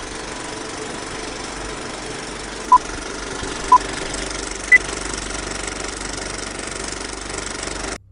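Film-leader intro sound effect: an old film projector running with a steady rattle and hiss. Three short countdown beeps come a second apart, the third higher, and the sound cuts off suddenly near the end.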